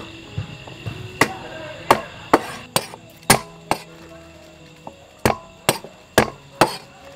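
Cleaver chopping young green governor plums on a wooden chopping block: about a dozen sharp chops at an uneven pace, with a short pause about four seconds in.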